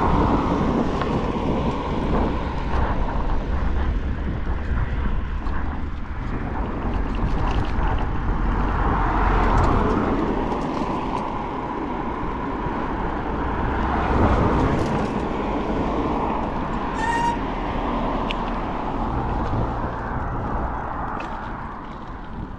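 Wind rumbling on the microphone of a camera riding along a road, with tyre and road noise. Cars go by in the other lane, swelling up twice partway through.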